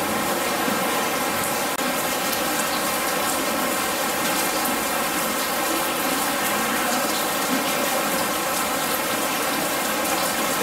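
Artificial rain from the installation falling steadily in a continuous dense patter, with a momentary break just under two seconds in.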